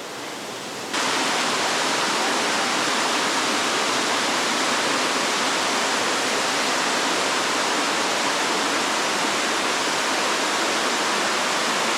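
Waterfall rushing steadily, a continuous hiss of falling water that jumps abruptly louder about a second in and then holds level.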